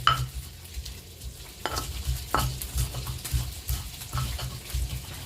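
Stone pestle grinding and pounding spices in a stone mortar: an irregular run of dull low thumps with a few sharper clicks, while oil sizzles faintly in a frying pan of fish behind.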